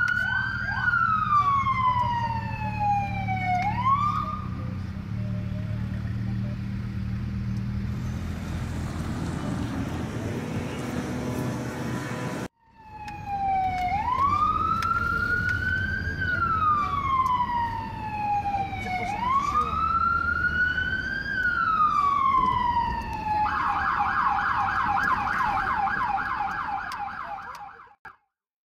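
An American police car's electronic siren wailing in slow rising and falling sweeps over the car's steady engine and road drone. The siren stops for several seconds, then wails again, and near the end switches to a rapid yelp before the sound cuts off.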